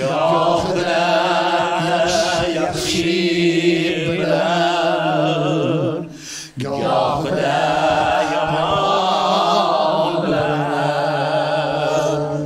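A man singing long drawn-out phrases with a wavering vibrato, breaking briefly for breath about six seconds in.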